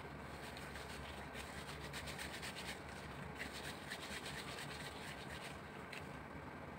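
Faint rubbing and crinkling of disposable plastic gloves as hands roll raw pork-and-beef mince into meatballs, with a run of quick scratchy rustles in the middle, over a low steady hum.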